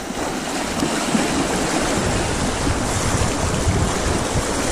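Fast, shallow river water rushing and splashing steadily as it is waded through, with wind rumbling on the microphone.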